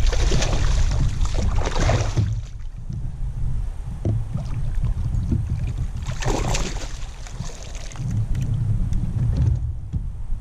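Water splashing around a kayak in two bursts, one at the start lasting about two seconds and a shorter one about six seconds in, over a steady low rumble.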